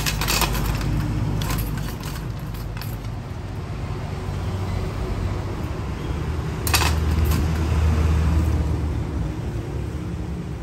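Steel kitchen knives clinking and clattering as they are picked up and laid out, with sharp metal clicks at the start, around two seconds in and about seven seconds in. Under it runs a steady low rumble that swells about seven seconds in.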